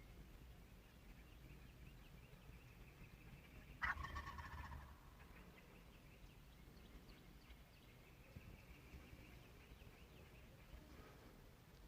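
Osceola wild turkey tom gobbling once, a short rattling gobble about four seconds in.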